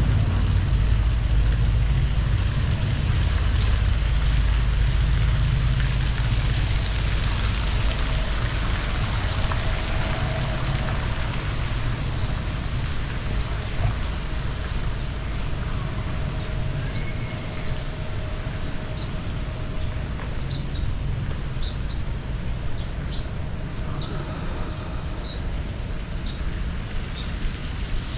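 Steady outdoor street ambience: a strong low rumble under an even hiss, with short high chirps scattered through the second half.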